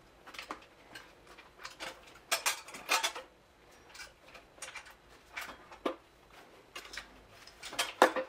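Scattered metal clinks and knocks as the oil pump and balance shaft assembly of an Audi 2.0 FSI engine is worked loose from the block. A few louder knocks come about two and three seconds in and near the end.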